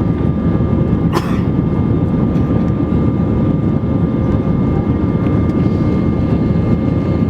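Airbus A320 jet engines running steadily at takeoff or climb power: a dense, even rush with a few thin steady whining tones above it, and one brief click about a second in.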